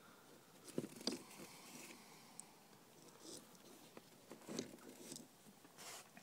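Faint clicks and light knocks of loose engine parts being handled, a few scattered taps about a second in and again late on.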